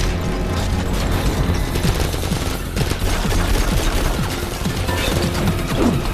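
Dense, rapid automatic gunfire from a film shootout, many guns firing at once over a heavy music score.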